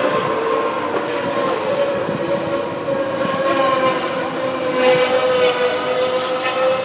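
GP2 race cars' 4.0-litre V8 engines running at high revs elsewhere on the circuit: a continuous engine note whose pitch rises and falls slowly, with a few quick higher pitch changes near the end.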